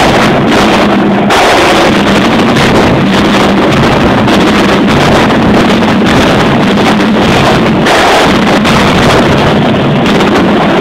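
Marching drumline of snare drums and bass drums playing as it marches, recorded so close and loud that it comes through as a constant heavily distorted, clipped wall of noise.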